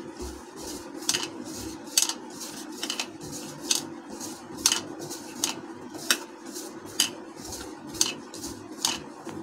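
Hand rubbing flour and oil together in a ceramic bowl, with sharp light clinks at irregular spacing, one or two a second, as the bangle on the mixing wrist knocks against the bowl.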